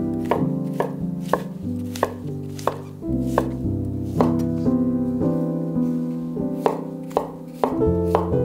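Kitchen knife chopping on a wooden cutting board, about two strokes a second, over background music.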